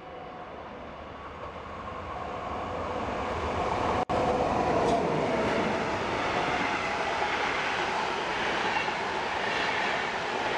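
Locomotive-hauled passenger train, an NS electric locomotive pulling a long rake of coaches, approaching and running through a station at speed. The rumble grows louder over the first four seconds, then becomes a steady rush of wheels on rail as the coaches pass. The sound drops out for an instant about four seconds in.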